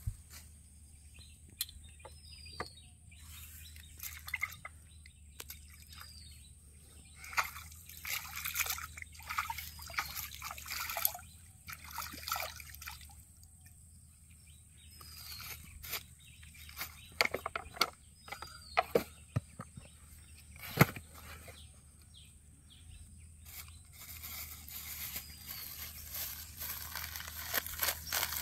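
Small splashes and drips of bait being tossed into a shallow pond, with a bird giving a short chirp every few seconds. Near the end a plastic bag rustles.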